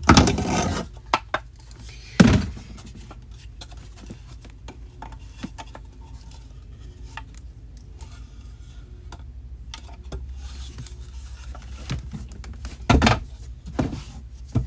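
Objects being handled and set down: a few sharp knocks, one right at the start, another about two seconds in and a heavier one near the end, with light rubbing and small clicks between.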